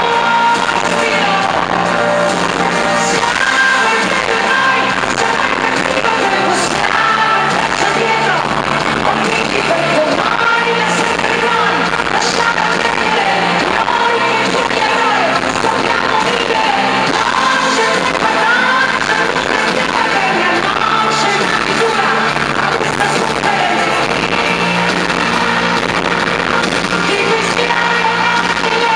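Live pop band playing with a woman singing lead into a microphone. It is recorded from within the audience in a large arena, so it sounds loud and echoing.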